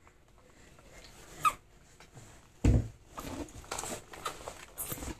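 Hands slapping and patting a wooden floor and cabinet door: a heavy thump near the middle, then a run of lighter, irregular knocks and pats. A brief high squeak comes just before the thump.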